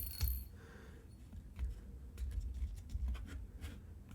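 Light clicks and taps of small plastic keyboard parts being handled and fitted by hand, with a sharper click just after the start.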